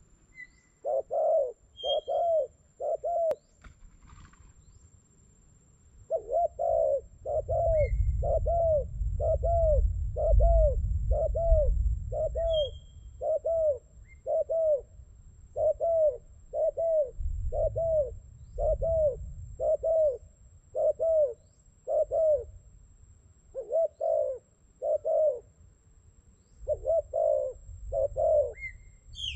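Spotted dove cooing: a long series of short, low coos, about one a second, after a first group of three and a short pause. Gusts of wind rumble on the microphone at times, and a small bird chirps briefly a few times.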